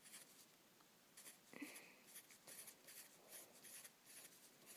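Faint pencil scratching on paper in short strokes, as small round spots are drawn one after another. A brief faint high tone sounds about a second and a half in.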